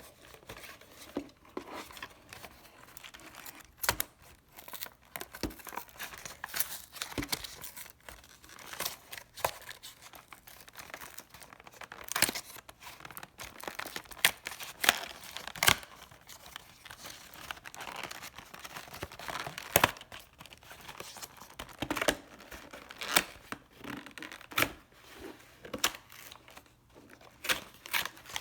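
Packaging on a Pokémon product box being torn open and crinkled by hand: irregular tearing and crackling sounds with sharp louder rips scattered throughout.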